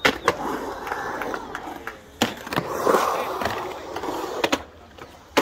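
Skateboard rolling across a concrete bowl, its wheels making a loud rolling noise, broken by several sharp clacks of the board against the concrete.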